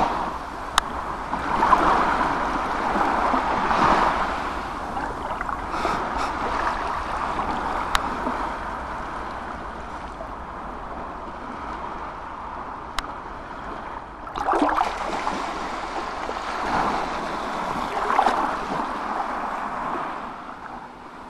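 Small waves washing onto a sandy beach, the surf swelling and falling every couple of seconds, with a few faint clicks.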